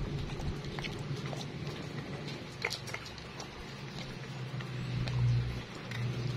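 A dog eating wet fruit pieces from a stainless steel bowl: irregular wet clicks and snaps of its tongue and teeth against the metal and the food, over a low steady hum that grows louder about five seconds in.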